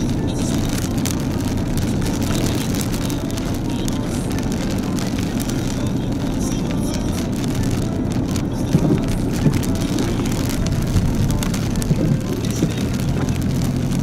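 Car cabin noise while driving on a rain-soaked road: a steady rumble of engine and wet tyres, with rain hitting the windshield and a few sharp taps.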